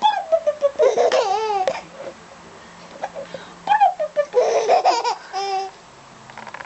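A small child laughing hard and high-pitched, in two bouts of laughter with a pause of under two seconds between them.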